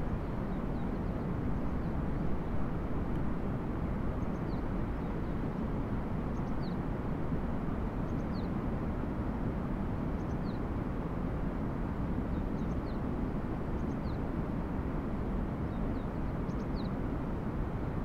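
Steady low rushing outdoor noise, with faint, short high chirps from small birds every second or so, each note dipping slightly in pitch.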